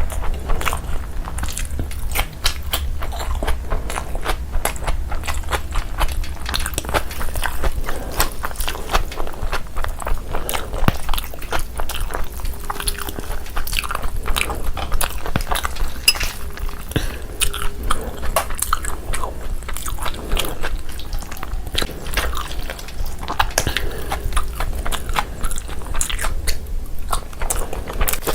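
Close-miked eating sounds: a person chewing and biting food, with rapid, irregular wet clicks and crunches over a steady low hum.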